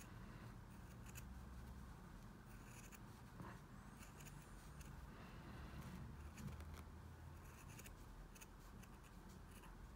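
Faint, irregular snips of small scissors cutting through knitted wool fabric, stitch by stitch, opening a crochet-reinforced steek.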